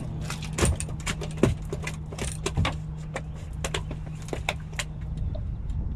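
A run of irregular sharp clicks and clatters of small hard objects being handled, over a steady low hum.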